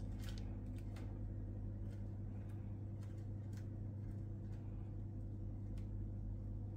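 A steady low electrical-sounding hum, with faint scattered small clicks from fishing line and a hook being handled while a knot is tied.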